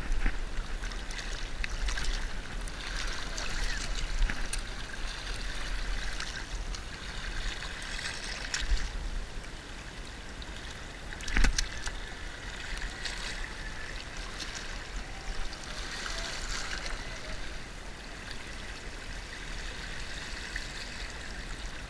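Shallow seawater lapping and trickling over shelly rocks at the shoreline, with small clicks and rustles as a lure's hook is worked out of a sea bass's mouth by hand. One sharp knock about eleven seconds in.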